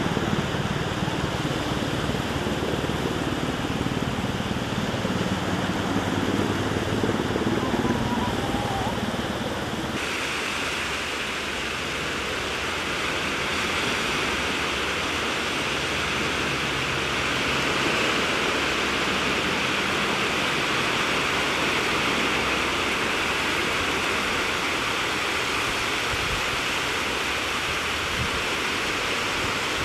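Shallow sea water washing and rippling over sand at the water's edge, a steady rushing hiss. About ten seconds in it turns brighter and hissier.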